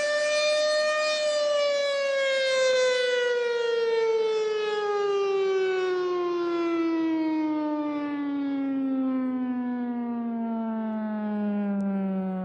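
ASC OM-120 outdoor warning siren sounding one tone that climbs slightly for about a second and then slides steadily down in pitch as the siren winds down.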